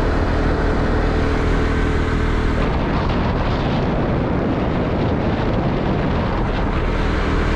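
Wind rushing over the microphone of a moving motorbike, with the steady low hum of its engine underneath; the wind grows rougher and covers the engine after about three seconds.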